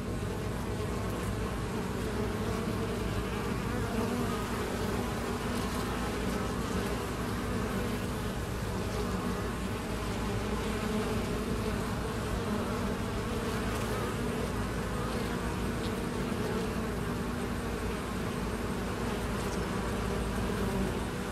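Honeybees buzzing steadily at a hive entrance: the hum of many bees' wings as foragers fly in and out.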